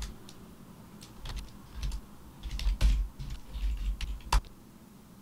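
Typing on a computer keyboard: short clusters of keystrokes, ending with one sharper, louder keystroke about four and a half seconds in.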